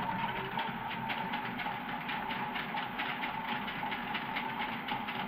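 Toy washing machine starting suddenly and running, its small motor whining steadily while the badly unbalanced drum rattles and knocks several times a second.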